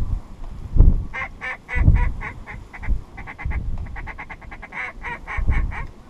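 Duck quacking in a fast series of short calls, about four a second, running for several seconds, with low gusts of wind rumbling on the microphone.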